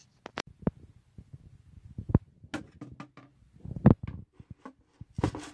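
Aquarium gravel clicking and an ornament knocking as a coral decoration is set down and pressed into the gravel of a glass tank. The knocks are scattered and sharp, the loudest about four seconds in.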